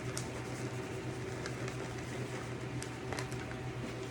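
A steady low hum with a light hiss, and a few faint clicks.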